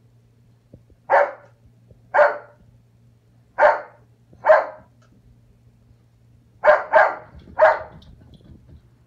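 Puppy barking in play at a cat: seven short, sharp barks, four spaced about a second apart, then three in quick succession near the end.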